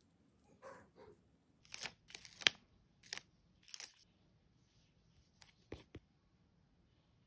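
Sticker handling on a crinkly plastic sticker sheet: several short rustling, tearing peels, then two or three light clicks as stickers are set down with tweezers.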